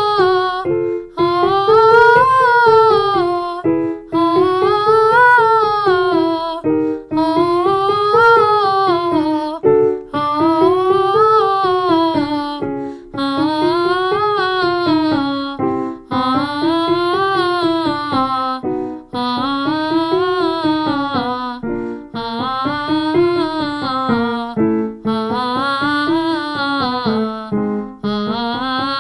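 A woman's voice singing a wordless vocal warmup scale with piano accompaniment: a smooth rise and fall about every three seconds, each repeat starting a little lower than the one before.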